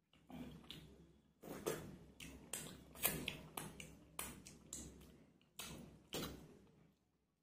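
Fingers wiping curry off a stainless steel plate, then licking and lip-smacking while eating from the fingers: a string of short, wet clicks and smacks.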